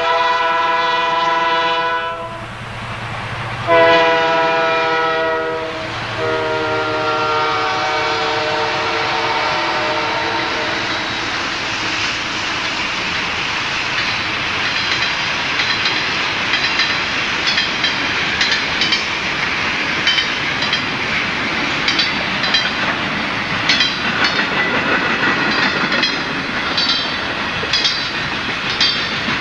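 Canadian Pacific freight train led by MLW diesel locomotives: a multi-note air horn blows in long blasts, breaking off twice, with the last dropping slightly in pitch as the locomotives go by. Then the steady rumble of passing freight cars, with wheels clicking over rail joints more and more often.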